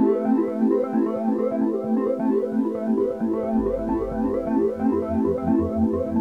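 Background music: a synthesizer/electric-keyboard tune of quick repeating notes, with a pulsing bass line coming in about halfway through.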